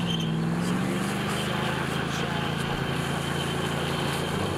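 Dodge pickup's engine running at high revs, held steady after a slight rise near the start, as its rear wheels spin in mud trying to get the stuck truck out.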